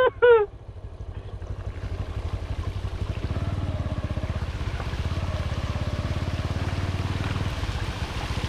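Single-cylinder motorcycle engine running at low speed with a steady, rapid pulsing, and a wash of water noise from riding along a flooded road. It opens with three quick, loud pitched blips.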